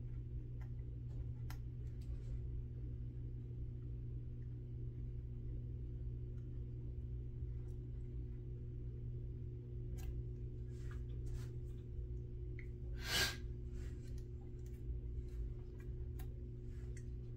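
Faint clicks and light scrapes of a hobby knife tip and fingertips working thin aluminium foil onto a plastic model car chassis, sparse at first and more frequent in the second half, with one louder short scrape about two-thirds of the way through. A steady low hum runs underneath.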